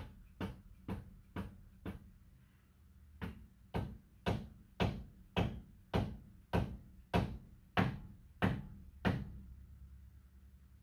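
Hand-tool work on a tractor engine: a regular series of sharp metallic strokes, about two a second, with a pause of about a second two seconds in. A steady low hum runs underneath.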